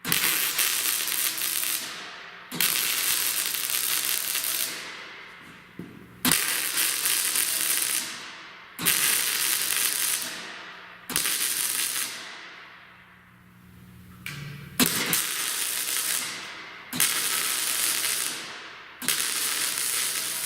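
Arc welding a steel cutting edge onto a loader bucket in a run of short stitch welds. About eight bursts of steady crackle and hiss, each lasting about two seconds, with brief pauses between them.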